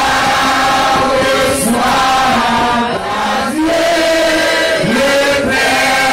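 A group of voices singing a chant together, holding each note for about a second before moving to the next.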